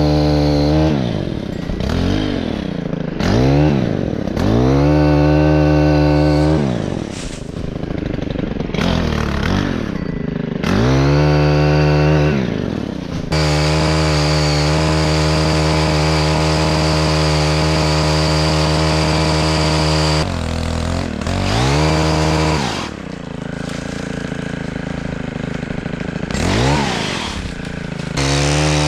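Two-stroke chainsaw engine revved up and let fall back toward idle over and over, its pitch swooping up and down. About halfway in it is held steady at full throttle for about seven seconds, then drops and is revved again near the end.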